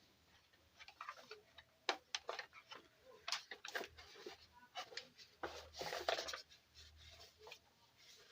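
Scattered light clicks, taps and rustling of hands handling an opened electronic keyboard and its power lead while connecting the power.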